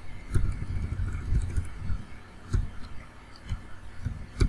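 Computer keyboard keys pressed at an uneven pace while text is deleted and retyped: scattered clicks and soft low thumps, the sharpest click near the end.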